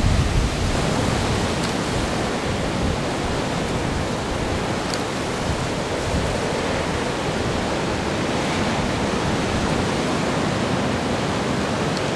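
Heavy storm surf from the Gulf of Mexico breaking, heard as a steady, even hiss of churning water.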